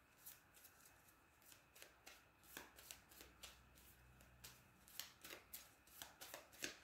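A deck of cards being shuffled by hand: faint, uneven flicks and taps of the cards, two or three a second, coming faster in the second half.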